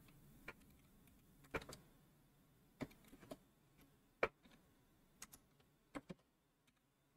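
Faint, irregular keystrokes on a computer keyboard as a short command is typed: about ten separate clicks, spaced unevenly.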